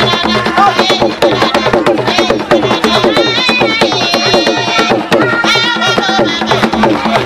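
Gule Wamkulu dance drumming in a fast, dense rhythm, with many voices singing over it.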